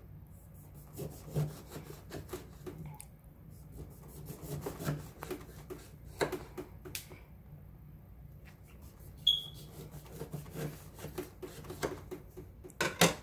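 Kitchen knife cutting a lime on a cutting board: irregular taps and scraping strokes as the blade goes through the fruit and meets the board, with a sharper knock about six seconds in and another near the end.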